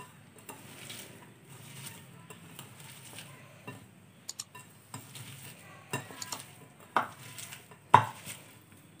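Sliced onions and green chillies being mixed by hand with salt and spices in a bowl: soft rustling and squishing, with several sharp knocks against the bowl. The loudest knock comes near the end.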